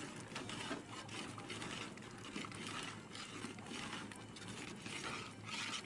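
Long metal spatula scraping and stirring mutton frying in onion masala in a large aluminium pot, in quick irregular strokes.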